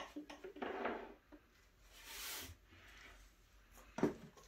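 Gochugaru (Korean chili powder) poured from a paper carton into a small soju glass: light clicks, a short rustle and a soft hiss of pouring powder, then a sharp knock about four seconds in as the glass is handled over the pan.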